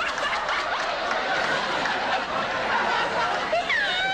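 A crowd laughing steadily, with a few high-pitched voices rising and falling above it near the end.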